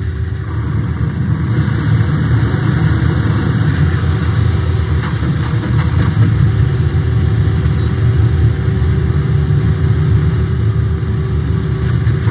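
Loud, steady, dense low rumble of electronic noise from a live noise-music set played through speakers, with a faint held tone above it.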